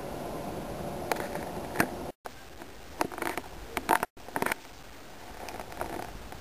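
Handling noise on a handheld video camera: irregular scrapes, rubbing and sharp clicks over a steady low hiss. The sound cuts out completely twice for a moment, about two and four seconds in.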